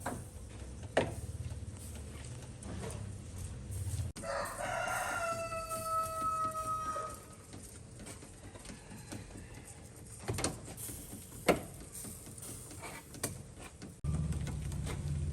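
A rooster crowing once, a single long call of about three seconds held on one pitch, with a few sharp knocks before and after it.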